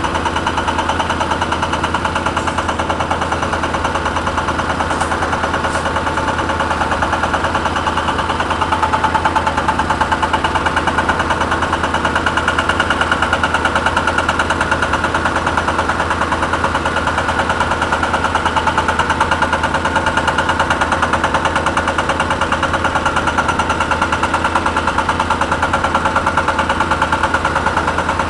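Hydraulic breaker hammer on a Caterpillar 320 excavator pounding in rapid, even blows without a break, over the excavator's diesel engine running.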